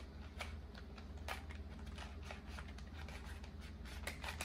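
Plastic puzzle cubes being twisted by hand, their layers clicking faintly and irregularly as the faces are turned quickly.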